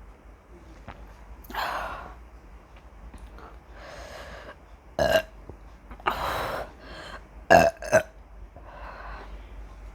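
A woman burping repeatedly after chugging carbonated Coke. The burps come in a string, some drawn out and some short and sharp, and the loudest is a quick pair of short ones about three quarters of the way through.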